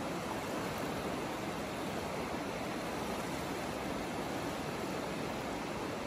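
Small waves washing in over shallow water at the shore: a steady, even hiss of surf with no single breaker standing out.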